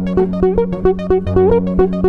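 LEMUR GuitarBot, a robotic electric slide guitar, playing a fast repeating minimalist pattern of picked notes, some of them sliding up in pitch as the motorised slides move along the strings, over a steady low drone.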